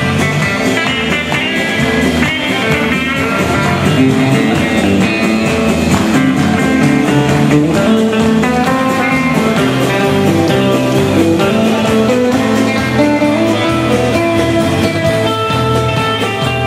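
A live band playing an instrumental passage, with guitar to the fore, the caller's voice silent.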